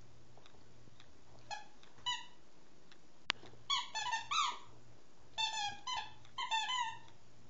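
A dog's squeaky toy squeaking as a small dog chews it: two single squeaks, then three bursts of quick squeaks, with a sharp click about three seconds in.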